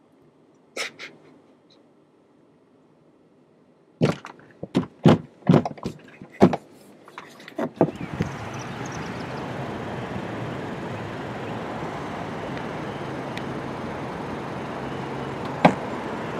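A quick series of knocks and thumps as someone climbs into a car and a car door is shut. Then the steady noise of the car driving, heard from inside the cabin.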